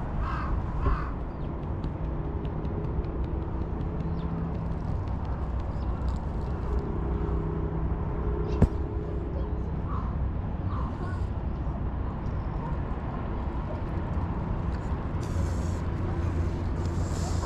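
Outdoor background rumble with a faint steady hum, a few short calls near the start and again about ten seconds in, and a single sharp click about eight and a half seconds in.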